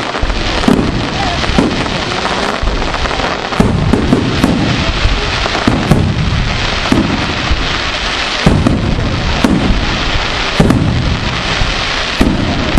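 Daytime fireworks barrage: a dense, continuous run of bangs and crackling, with heavier booms roughly once a second.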